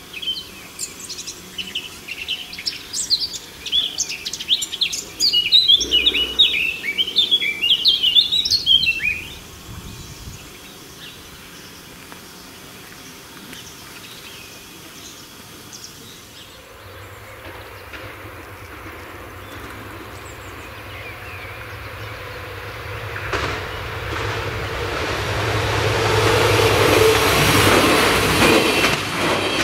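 Songbirds chirping loudly and busily for the first nine seconds or so. Later a diesel railcar approaches and passes with a low engine hum and wheel-on-rail noise that grows steadily and is loudest near the end.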